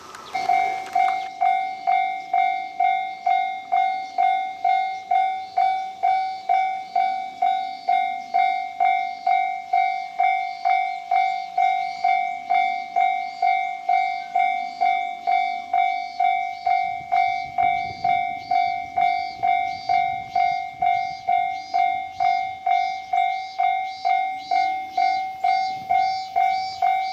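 Railway level-crossing warning bell starting about half a second in and ringing steadily at about two strikes a second. A faint low rumble comes in partway through.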